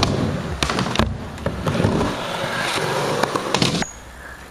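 Skateboard wheels rolling on concrete with a low rumble, broken by several sharp clacks of the board on the ground. The rolling stops near the end and it turns much quieter.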